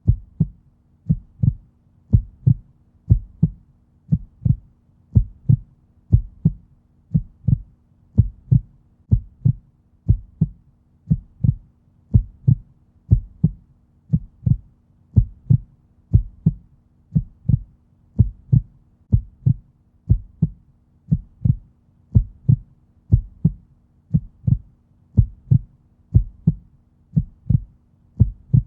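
Heartbeat sound: a steady, slow, even rhythm of paired low thumps, the lub-dub of a resting heart, repeating without change.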